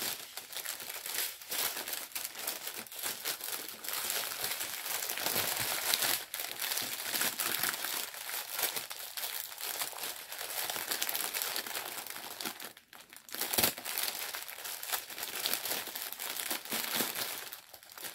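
Plastic packaging of diamond painting drills crinkling continuously as it is handled and packed away. About thirteen seconds in it dips briefly, then a sharp click follows.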